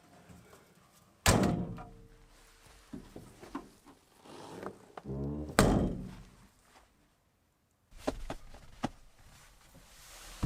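Two heavy thuds about four seconds apart, each with a short ringing tail.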